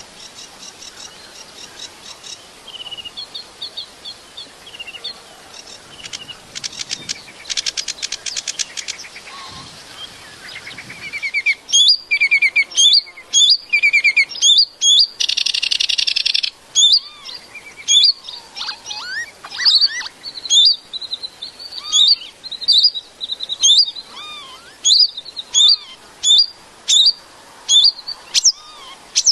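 A small bird calling: soft varied chirps and fast trills at first, then, about twelve seconds in, loud sharp whistled notes that sweep in pitch, repeated about once or twice a second.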